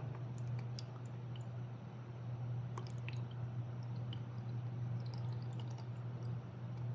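Water trickling and dripping from a plastic cup into a garment steamer's plastic water tank, with faint scattered clicks of plastic on plastic, over a steady low hum.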